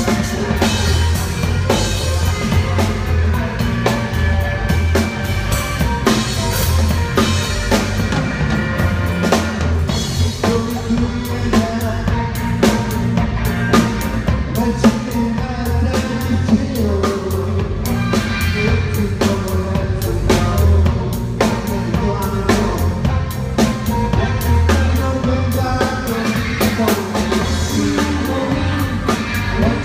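Live rock band playing a song: a drum kit with bass drum and rimshots up front, and electric guitars, bass and a singing voice over it, heard from just behind the drummer.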